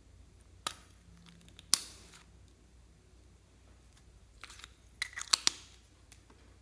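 Slime being squeezed and stretched by hand, giving sharp sticky clicks and pops: one click, a louder one about a second later, then a quick cluster of clicks and crackles around five seconds in.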